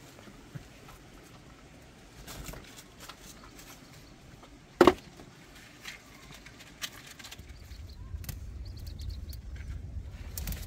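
Handling noises as dry twigs are reached into: scattered small clicks and one sharp knock about halfway through, then a low rumble building near the end.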